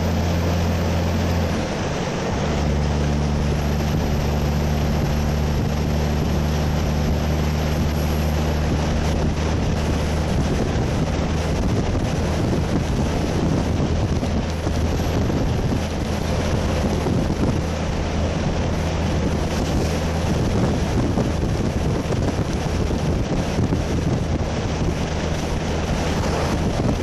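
Cummins diesel engine of a Western Star 4800FX truck running steadily under way, a low hum with wind rushing over the microphone at the open cab window. After about ten seconds the engine hum fades into the wind and road noise.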